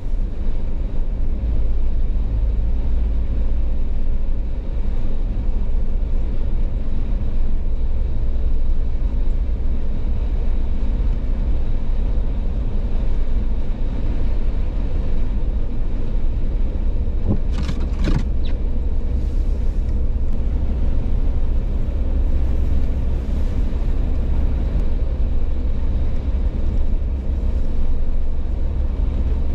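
Jeep driving at speed: a steady low rumble of engine and road noise, with a few brief clicks a little past the middle.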